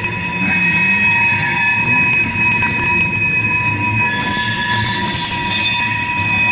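Railroad tank cars rolling past, their wheels squeaking in several steady high pitches over the low rumble of the cars on the rails.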